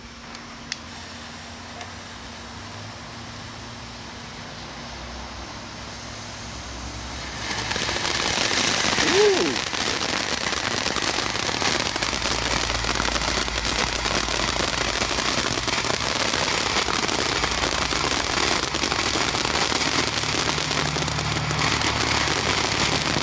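Small novelty firework fountain: a faint hiss at first, then about seven seconds in it starts spraying sparks with a loud, steady hiss and crackle that keeps going.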